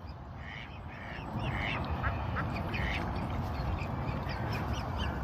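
Ducks on a pond quacking, many short calls one after another. A low rumble grows louder about a second in.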